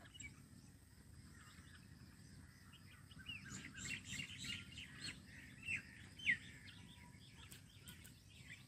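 Red-vented bulbul calling: a quick run of short chirps and whistled notes starts about three seconds in, and the loudest is a downward-sliding note a little past six seconds. A steady low background rumble runs underneath.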